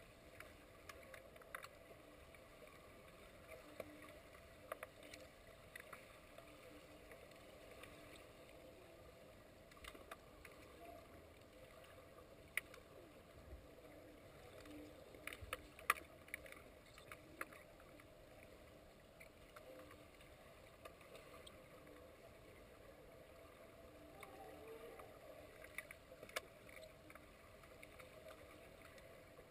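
Faint underwater pool ambience heard through a submerged camera: a low steady hiss with scattered sharp clicks and knocks, the loudest about halfway through.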